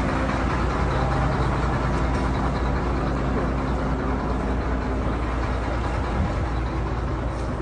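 A vehicle engine running steadily with a low hum, under a constant rushing noise.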